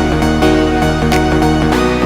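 Electronic background music with held synth chords over a steady beat.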